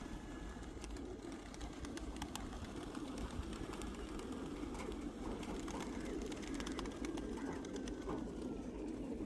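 Pigeons cooing steadily, with scattered faint clicks.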